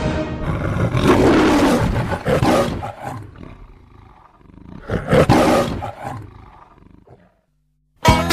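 The MGM logo's lion roar heard twice: a long roar over the first three seconds, then a second one about five seconds in, each fading away.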